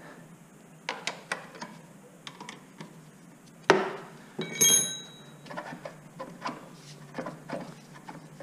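Metal hand tools clicking and clanking as a wrench works the front fork's pinch bolts. There is a sharp knock a little under four seconds in, followed by a ringing metallic clink, with lighter ticks and clicks before and after.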